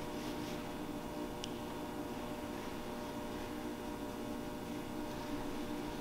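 Quiet room tone with a steady electrical hum, and one faint click about one and a half seconds in.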